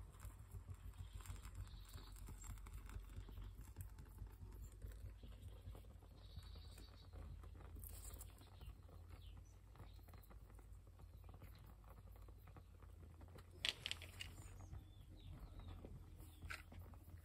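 Dry twigs crackling faintly as a small kindling fire catches, with one sharper crack about two-thirds of the way through.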